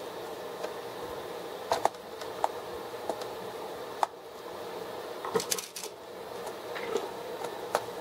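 Sharp plastic clicks and snaps from a Compaq C501NR laptop's top bezel as it is pried and twisted up off the keyboard deck, scattered irregularly with a quick cluster about five and a half seconds in, over a steady background hum.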